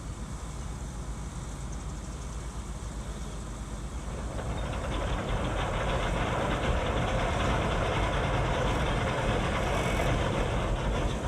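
A large engine running with a steady low rumble, growing louder and rougher about four and a half seconds in.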